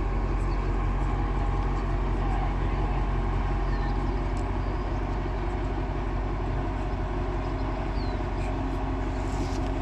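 Heavy diesel engine of the lifting crane running at a steady speed, a deep even drone.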